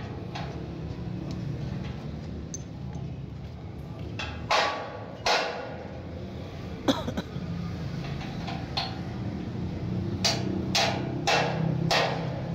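Sharp knocks with a short ring, like hammer blows: two about four to five seconds in, one near seven seconds, then a run of about five roughly half a second apart near the end. A steady low hum runs underneath.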